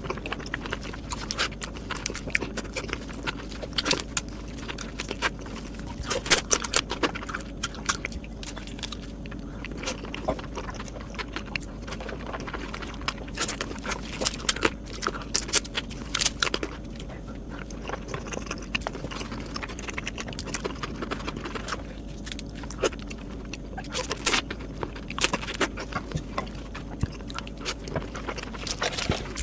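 Close-miked eating of Korean marinated raw crab: chewing and biting, with many irregular sharp cracks and clicks of crab shell.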